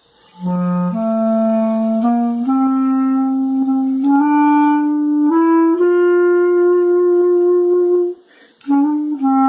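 Solo clarinet playing a slow hymn melody, one sustained note at a time, mostly stepping upward, with a short break about eight seconds in.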